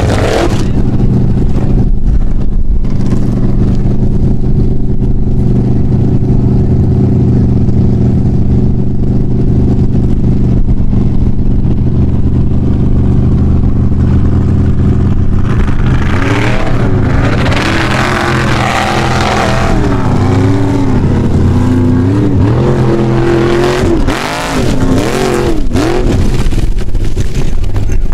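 Formula Offroad buggy engine held at high, steady revs for about fifteen seconds as it climbs a steep dirt hill. It then revs up and down repeatedly for about ten seconds.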